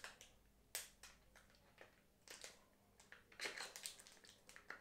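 Faint handling noise from a DJI Ronin-S gimbal turned over in the hands: a scattering of small clicks and plastic-and-metal ticks at irregular intervals, the sharpest about three quarters of a second in and a quick cluster about three and a half seconds in.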